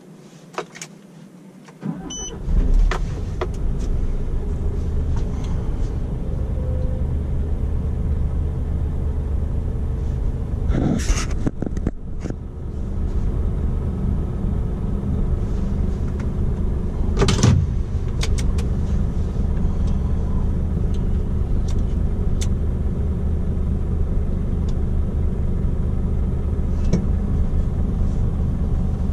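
Scania R450 truck's 13-litre straight-six diesel engine starting about two seconds in, then running steadily. Two brief sharp noises come partway through.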